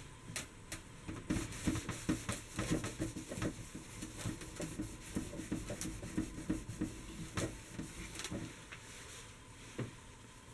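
A cloth rubbing over the copper top of an antique sake warmer in quick, uneven strokes, buffing off metal polish. The rubbing stops about eight seconds in.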